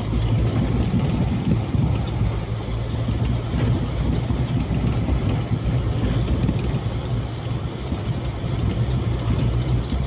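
Car driving along a rough unpaved dirt road, heard from inside the cabin: steady low engine hum mixed with the rumble of the tyres on the uneven surface.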